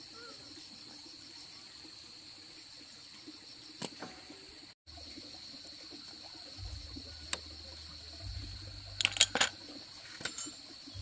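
Steady high-pitched insect buzzing, like crickets, with a few sharp knocks or clicks. The loudest is a quick cluster of clicks about nine seconds in.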